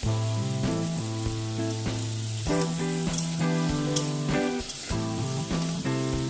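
Ridge gourd and potato chunks sizzling in hot oil in a wok, stirred with a spatula that scrapes and clicks against the pan now and then. Background music with held notes that change every half second or so plays along.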